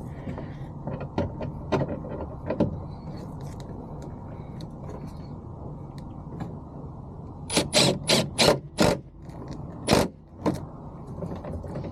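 Interior door handle of a 1999–2006 Chevy/GMC truck being fitted into the door: a few scattered clicks, then a quick run of about five sharp clicks and snaps of hard plastic and metal parts about two-thirds of the way through, and two more a second or so later.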